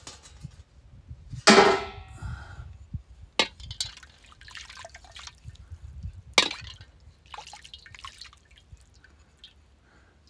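Water dripping and splashing while a plastic colander or dish basin is washed and handled, with a louder splash or clatter about a second and a half in and two sharp clicks later.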